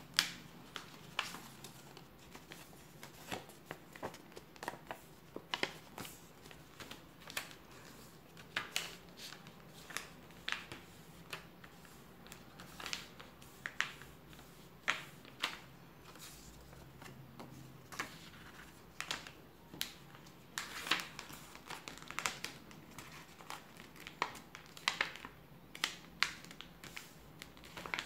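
A sheet of paper being folded and creased by hand, making irregular crisp rustles and crackles, one or more every second or so.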